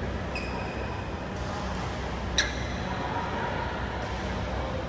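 Steady low hum of a large indoor sports hall, with one sharp click about halfway through.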